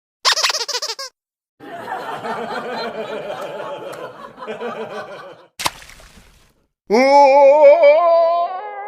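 A string of comedy sound effects: a quick burst of high-pitched laughter, then a few seconds of layered laughter, a sharp hit, and a long, loud wavering cry that slides down in pitch near the end.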